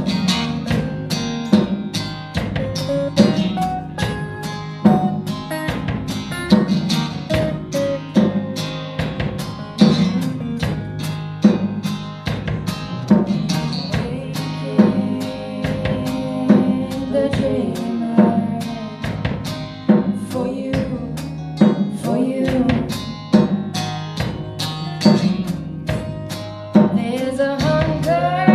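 Live acoustic band music: two acoustic guitars strumming over a steady drum-kit beat, with a woman's voice singing near the end.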